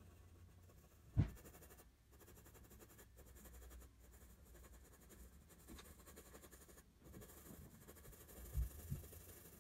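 Graphite pencil scratching faintly on drawing paper in quick shading strokes. A single sharp thump comes about a second in, and two softer knocks close together near the end.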